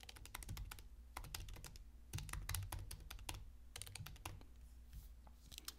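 Typing on a computer keyboard: faint, quick runs of key clicks with short pauses between them.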